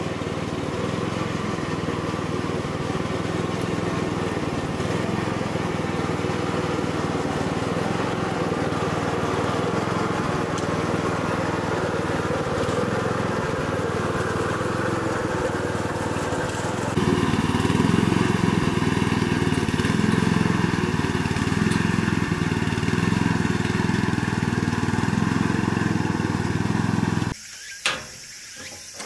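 Small engine of a walk-behind motorised orchard transport cart running steadily. About two-thirds of the way through it gets louder with a slow throb, then cuts off near the end, followed by a few sharp knocks.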